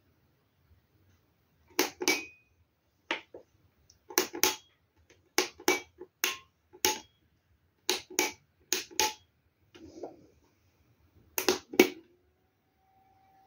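Sharp plastic clicks, mostly in pairs a fraction of a second apart, about ten times: the push-button switches of a hand-crank generator power box being pressed and released.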